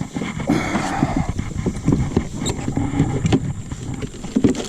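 Irregular clunks, knocks and rattles of fishing gear being handled and moved around in a kayak, with some rustling about half a second in.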